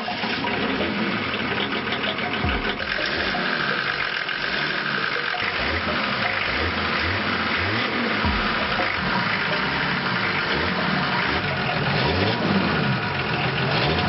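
Engine of an old cab-over truck running and being revved, its pitch rising and falling again and again.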